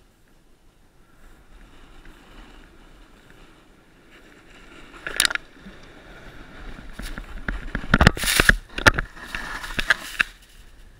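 Snowboard sliding and scraping over hard-packed piste snow, with a sharp scrape about five seconds in. From about seven seconds it builds into loud scraping and knocking as the rider goes down and snow sprays over the camera, then quietens near the end.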